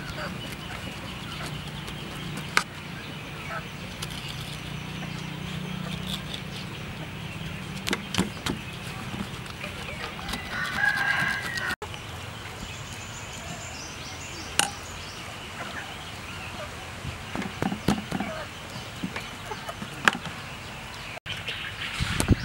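A knife scoring a raw stingray on a metal tray, with scattered sharp taps and clicks. A chicken calls once, a short pitched call in the middle.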